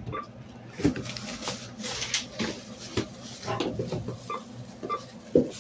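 Plastic carrier bags rustling and crinkling, with irregular light knocks of items against a plastic shopping basket, and a few short, faint beeps.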